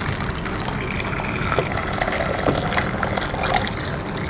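Strained chicken broth pouring in a steady stream from a glass jug into a stainless steel saucepan, splashing as the pan fills.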